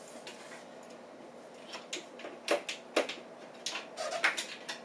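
Folding treadmill being unfolded and its deck lowered from the upright position: a series of sharp clicks and knocks from the frame, the two loudest about two and a half and three seconds in.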